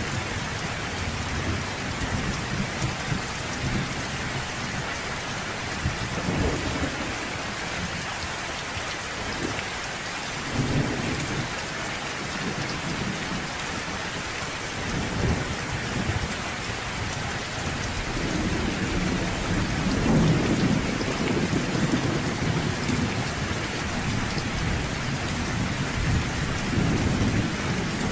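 Steady rain falling with thunder rumbling several times underneath; the longest and loudest roll comes about two-thirds of the way through.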